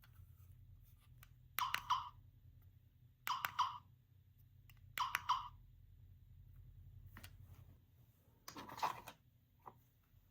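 Small gachapon car-sound toy giving three short, alike clicking bursts about a second and a half apart, then a longer, noisier burst near the end.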